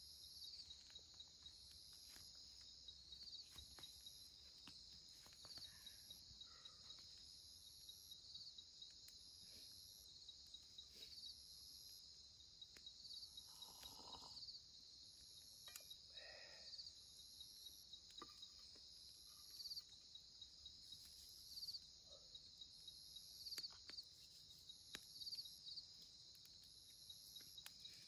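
Night insects, crickets, trilling steadily and faintly, with a higher chirp repeating about every second and a quarter. A couple of faint lower calls come near the middle.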